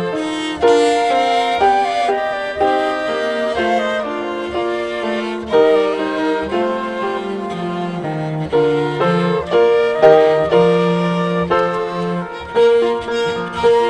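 Chamber ensemble of flute, violin, cello and grand piano playing Christmas music: a melody of held notes over a sustained cello line.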